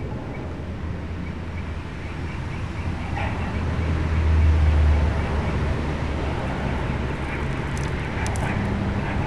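Low engine-like rumble of a vehicle passing nearby, swelling to its loudest about halfway through and then fading. A few faint high clicks come near the end.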